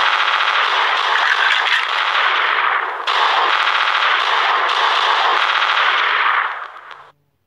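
Rapid machine-gun fire, as a battle sound effect, in two long bursts with a brief break about three seconds in. It fades and stops just before the end.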